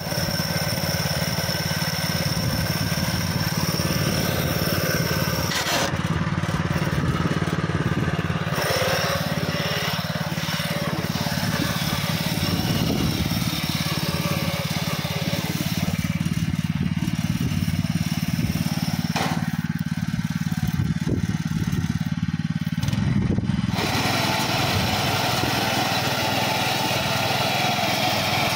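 Honda 7 hp single-cylinder petrol engine of a walk-behind power weeder running steadily under load, driving a front reaper cutter bar through standing grass.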